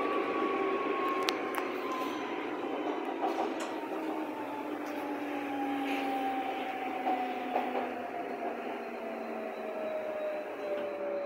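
HK-series U-Bahn train heard from inside the car, its traction motors whining as it slows down, the whine falling steadily in pitch over the rumble of the wheels on the rails.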